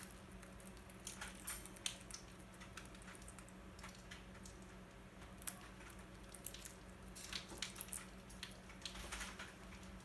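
Rose-ringed (Indian ringneck) parakeet biting and chewing a piece of food held in its foot: small, irregular crunchy clicks of the beak in scattered clusters with quiet gaps between, over a steady low hum.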